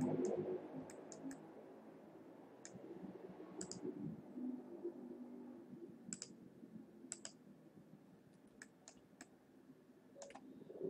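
Computer mouse button clicking: about fifteen faint, sharp clicks at uneven intervals, some in quick pairs or threes, over a low steady room hum.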